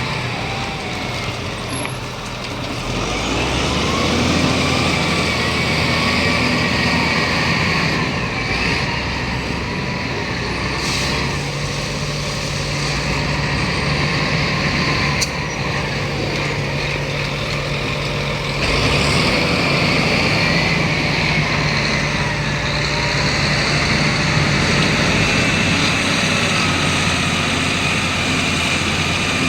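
Heavy diesel machinery running steadily, its engine note stepping up and down a few times, with a thin wavering whine above it and an occasional sharp knock.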